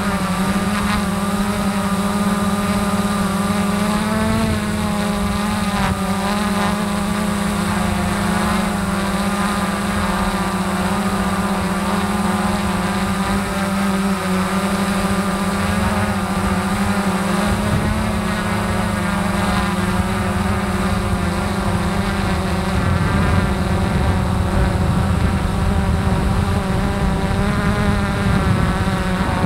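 Multirotor drone's electric motors and propellers running steadily in flight, heard from the camera mounted on the drone, a hum whose pitch wavers slightly as the rotors adjust.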